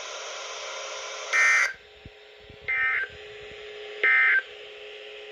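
Three short bursts of EAS end-of-message data tones (the SAME "NNNN" code), each a fast two-pitch warble near 2 kHz lasting about a third of a second, spaced about 1.4 s apart, over a faint hiss. They signal the end of the severe thunderstorm warning message.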